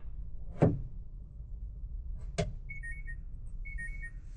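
Two sharp knocks of wooden shelf boards being handled, the second about two seconds after the first, over a low hum. After the second knock come two quick runs of short, high electronic beeps.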